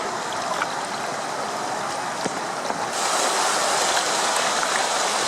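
Rushing river water, a steady rush that gets louder and brighter about three seconds in.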